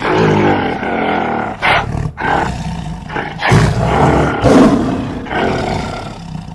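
Tiger and gorilla roar sound effects, several loud roars and growls following one another with little pause, the loudest a little past the middle.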